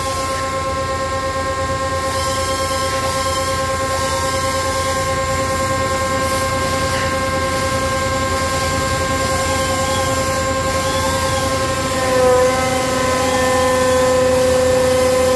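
Hydraulic test stand driving a Rexroth A4VG125 variable-displacement axial-piston pump: a steady machine whine made of several held tones. About 12 seconds in it gets a little louder and a new lower tone joins as the pump shifts onto stroke once its electrical control signal is connected.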